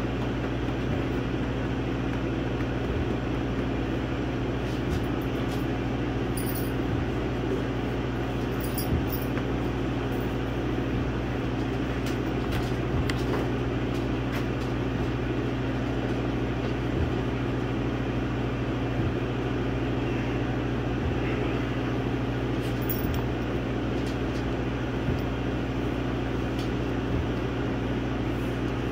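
Laser engraver running as it burns a design into a wooden board: a steady machine hum with fan-like noise, and faint ticks now and then.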